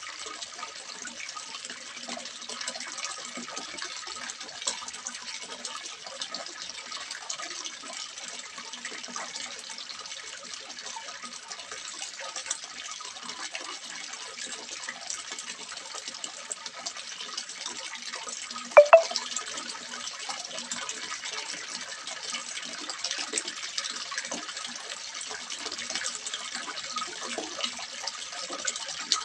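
Water splashing steadily into a small fish pond. About two-thirds of the way through there is one brief, sharp, louder sound.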